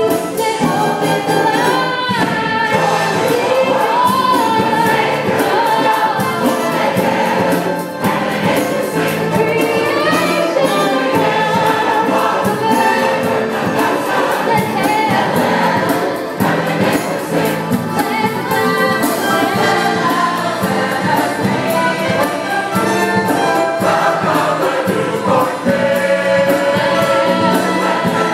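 Church choir singing gospel-style music with instrumental accompaniment and a steady beat.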